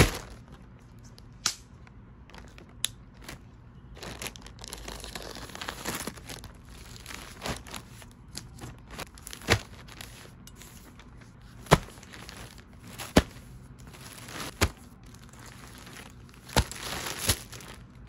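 Plastic mailer bag and clear plastic garment bags crinkling and rustling as they are handled and opened, with scattered sharp crackles.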